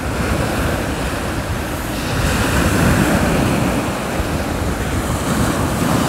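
Choppy surf of the Sea of Azov breaking and washing up a sandy beach, swelling as a wave rushes in a couple of seconds in. Wind rumbles on the microphone throughout.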